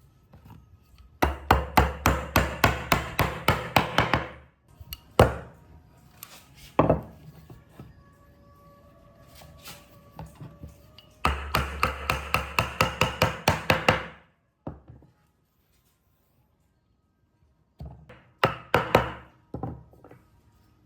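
Rapid, evenly spaced hammering on wood, about five or six blows a second. It comes in three runs of a few seconds each, with a few single knocks between them.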